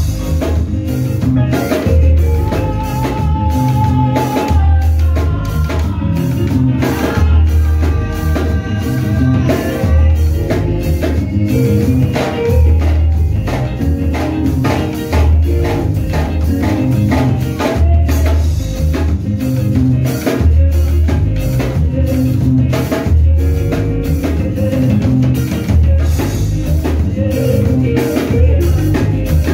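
Music with a steady drum-kit beat, a heavy bass line and singing, with tambourine-like percussion over it.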